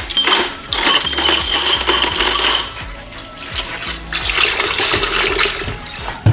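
Diesel fuel poured from a plastic jerry can into a bucket holding engine pushrods, splashing into the liquid. The pour comes in two spells, the first about a second in and the second past the middle.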